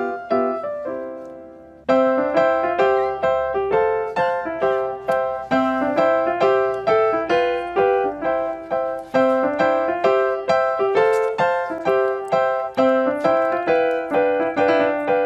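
Background piano music: a chord fades out over the first two seconds, then a steady run of evenly paced piano notes picks up and carries on.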